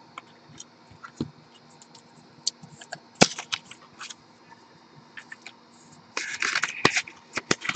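Clear plastic card holder being handled and opened: scattered light clicks and taps of plastic, one sharp click a little after three seconds in, and a short scratchy rustle about six seconds in followed by a few more clicks.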